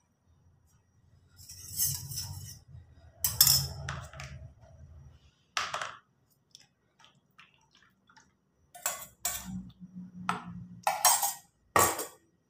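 A spoon and a steel bowl clinking, knocking and scraping in a run of short, separate sounds while red agar-agar jelly mixture is poured from the bowl into a plastic jelly mould.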